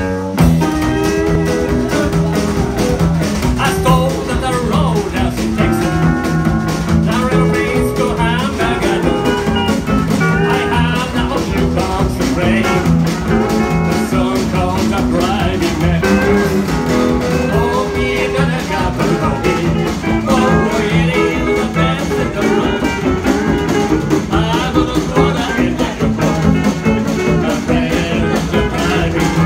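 Live country band playing with a steady beat: electric guitar, steel guitar, upright bass and drums.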